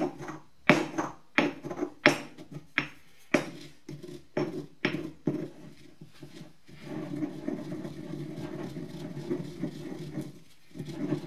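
Stone pestle pounding dry spices in a stone mortar, a run of sharp knocks about every half second. About seven seconds in it changes to a steady grinding rub as the pestle is worked round the bowl.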